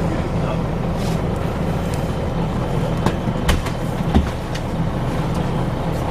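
Scania L94UB bus engine running steadily with a low drone, with a few sharp knocks about halfway through.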